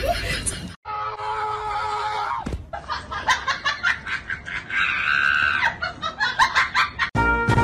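Voices shrieking and laughing, with a run of sharp knocks in the second half.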